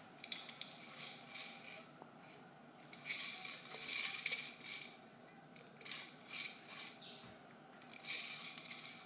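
Dry kibble rattling inside a plastic Premier Kibble Nibble treat ball as a dog noses and rolls it across a rug. The rattling comes in about four short bouts of rapid clicking, the longest about three seconds in.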